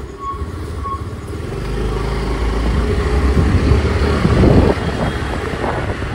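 Motor scooter engine running as the scooter pulls away and rides off. The engine and road noise grow louder over a few seconds, peak a little past the middle, then ease slightly.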